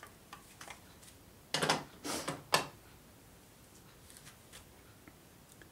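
A few faint clicks and three short rustling, handling noises about one and a half to two and a half seconds in.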